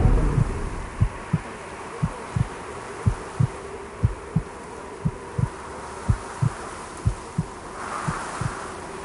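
Heartbeat sound effect: a low double thump, about once a second, over a steady faint drone.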